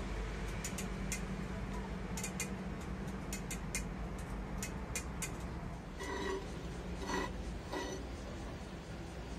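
Gas forge running with a steady low roar, sharp light ticks over it through the first half; a few short clinks of hard pieces being handled near the end.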